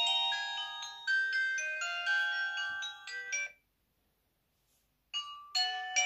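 Built-in ringtones of a T3000 Chinese mobile phone playing through its speaker: a fast melody of short, bell-like notes that stops about three and a half seconds in, then after a brief silence the next ringtone starts.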